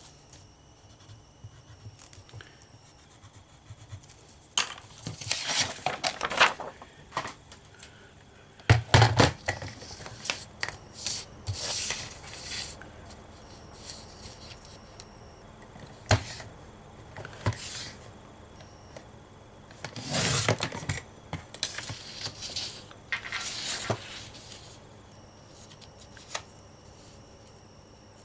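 Sheets of paper being handled, slid and lined up on a paper trimmer, in several bursts of rustling with a few sharp taps.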